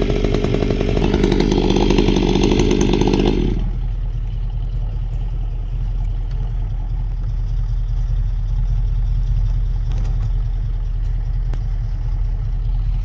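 Chainsaw running at full throttle, its pitch rising about a second in, then cutting out sharply about three and a half seconds in. A steady low engine rumble carries on after it, with a few faint ticks.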